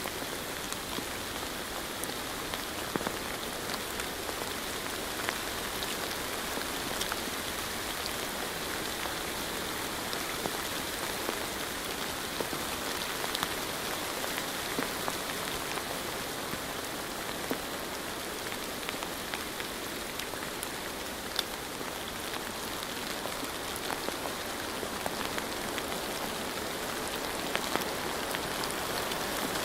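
Steady rain falling, with many small separate drop ticks over an even hiss.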